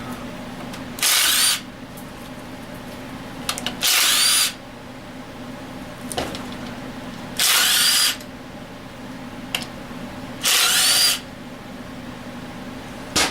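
Power drill run in four short bursts a few seconds apart, each about half a second long. A steady low hum runs underneath.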